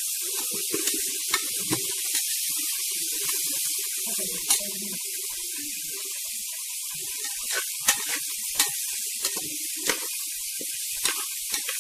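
Rice sizzling and crackling as it toasts in hot ghee in an aluminium pressure cooker, a steady hiss, the stage before water is added. A perforated steel spatula scrapes and clinks against the pot as the rice is stirred, more often in the second half.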